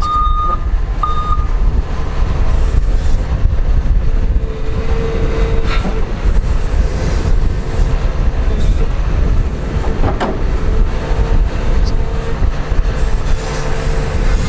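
Large excavator's diesel engine running with a steady low rumble, its reversing alarm beeping twice at the start. A whining tone comes and goes over the engine, with a couple of sharp knocks about six and ten seconds in.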